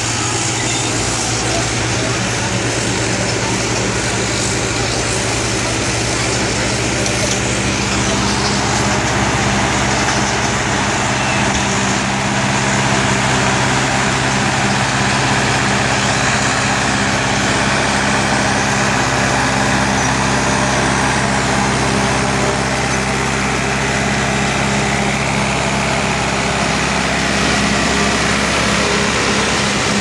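Caterpillar crawler bulldozer's diesel engine running steadily at a constant pitch as the dozer pushes soil.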